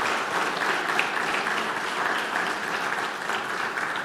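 Congregation applauding, a steady patter of many hands clapping that eases slightly near the end.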